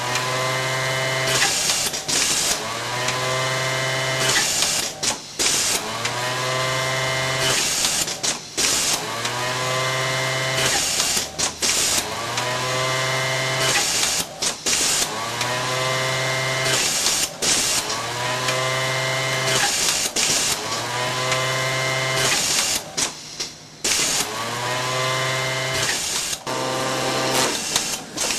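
Industrial sewing machine of an Atlanta Attachment AP264 automatic bottom band setting workstation, running in short repeated sew cycles about every three seconds. Each cycle rises in pitch as the motor speeds up, holds a steady whine, then stops with short clicks before the next one.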